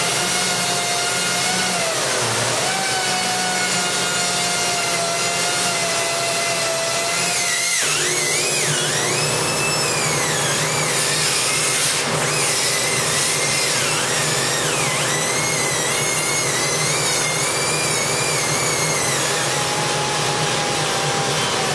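Small handheld cut-off grinder whining as its abrasive wheel cuts through the thin sheet steel of an ammo can, the pitch dipping each time the wheel bites in under load. About eight seconds in it breaks off briefly, then carries on at a higher, more wavering pitch.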